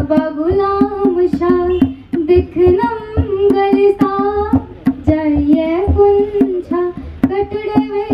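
Dogri folk song: a sliding melody, sung or played, over instrumental accompaniment with a regular beat.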